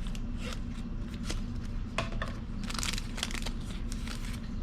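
Trading-card pack wrapper crinkling and cards being handled and flicked through, a scatter of small clicks and short rustles.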